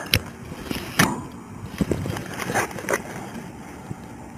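A few light knocks and scuffs of a rifle and duty gear being handled and shifted close to a body-worn camera.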